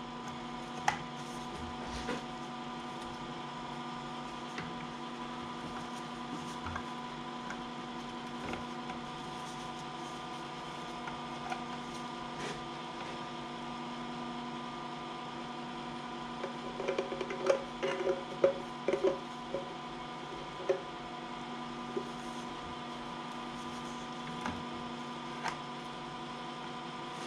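Steady electrical mains hum, with a few light knocks and a short cluster of clatter and gurgling about two-thirds of the way through as engine oil is poured from a jug through a funnel into the tractor's oil filler.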